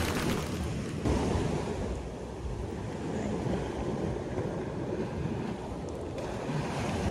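Waves washing on a sandy beach, with wind rumbling on the microphone.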